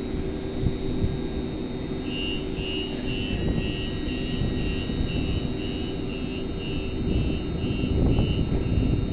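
Siemens S200 LRV4 light-rail train's door-closing warning: a rapid high beep repeating about twice a second, starting about two seconds in as the doors close. Under it is the steady hum of the stopped train's equipment.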